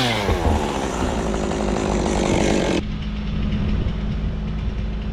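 A chainsaw's pitch drops off as it comes down from full throttle, followed by a noisy stretch. About three seconds in, the sound changes abruptly to a steady, low engine idle.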